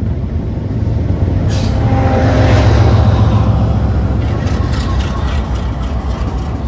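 Canadian Pacific diesel freight locomotive passing directly beneath, its engine rumble building to its loudest about two and a half seconds in, then easing as it pulls away.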